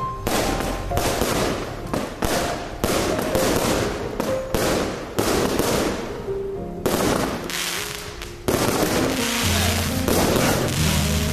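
Aerial fireworks launching and bursting in a quick series of sharp bangs, about two a second. The bangs thin out after about six seconds, under background music.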